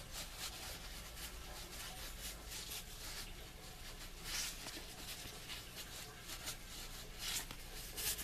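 Layered cloth pad fabric rustling and rubbing in the hands as its curves are worked out from inside with a wooden stick, in short irregular scratchy strokes.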